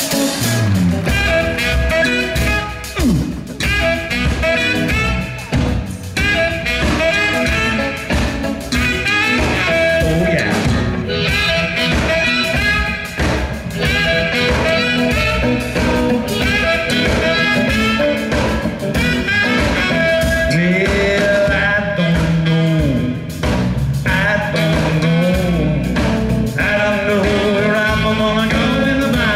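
Live band music: guitar, bass and drums playing a song, with some singing.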